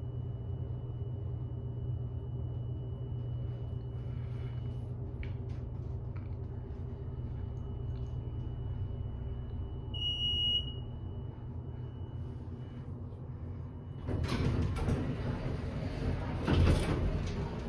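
Westinghouse elevator cab running with a steady low hum and a faint high whine, a single short chime about ten seconds in, then the doors sliding open about fourteen seconds in, with a loud knock near the end.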